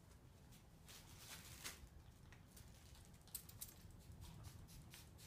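Faint rustling of fabric and paper being handled on a table, with a quick cluster of short hissing squirts from a plastic spray bottle about three and a half seconds in, dampening the press cloth before fusing.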